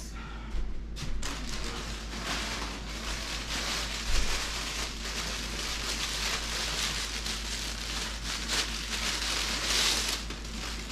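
Clear plastic packaging crinkling and rustling continuously as a handbag is pulled out of it and unwrapped.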